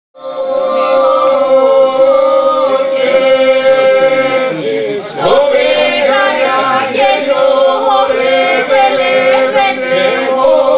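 Epirote polyphonic singing by a mixed group of men and women, unaccompanied: a steady held drone under moving upper voices, with a brief dip in the sound about halfway through.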